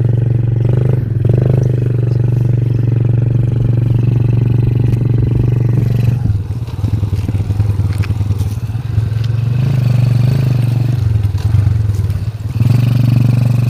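Motorcycle engine running under load, easing off and turning rougher about six seconds in, then opening up again near the end.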